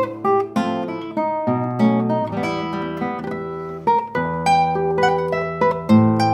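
Solo classical guitar, a cedar double-top with nylon strings, played fingerstyle: a waltz with plucked melody notes ringing over held bass notes.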